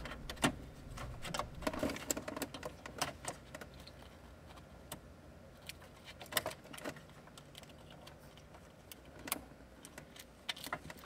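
Scattered light clicks and small rattles, irregular and faint: plastic wiring harness connectors being handled and plugged back in by hand.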